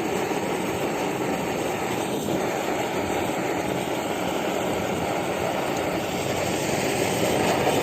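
BRS-8 pressurised liquid-fuel camping stove burning at full flame: a steady rushing burner noise, mixed with strong wind on the microphone, getting a little louder near the end.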